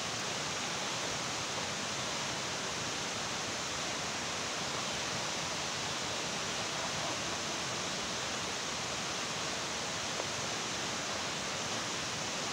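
Steady, even rushing noise with no distinct events: the constant outdoor sound of running water or wind in a forested canyon.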